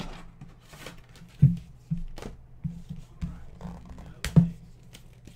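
Baseball cards and their plastic holders being handled and set down on a desk: scattered light clicks and taps with a few brief sliding swishes, the sharpest clicks about a second and a half in and just after four seconds, over a low steady hum.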